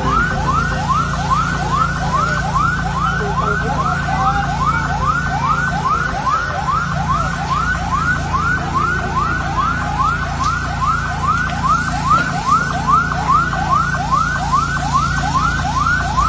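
Electronic emergency siren sounding a fast yelp: rising sweeps, about two a second, repeat without a break over a steady low hum.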